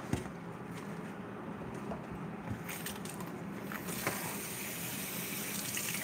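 Kitchen tap running into a stainless steel sink as romaine lettuce leaves are rinsed under it. The water starts about halfway through and runs steadily after that.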